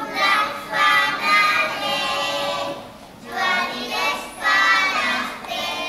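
A group of four-year-old children singing a song together, in sung phrases with a short break about three seconds in.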